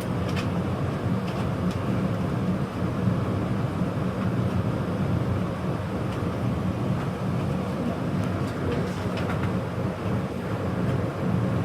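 Gas water heater burners firing: a steady low rumble with a few faint clicks.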